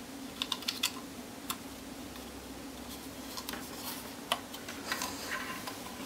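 Light plastic clicks and handling rattles from a TP-Link Tapo H200 hub as a microSD card is pushed into its slot and the hub is set down. A quick cluster of clicks comes in the first second, with more scattered clicks later.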